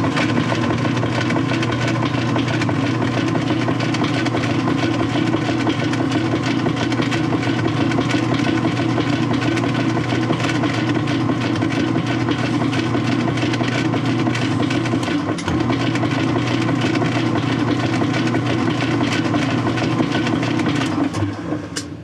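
Whirlpool direct-drive top-load washer agitating with an empty tub: a steady motor hum under the running noise of the transmission driving the agitator, which shuts off near the end. The agitation is running up the strokes that shift the direct-drive transmission into its neutral-drain position.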